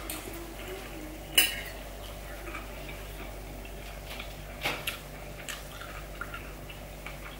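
Metal fork clinking against a ceramic plate while salad is picked up and eaten: one sharp clink about a second and a half in, another near five seconds, then a few faint ticks.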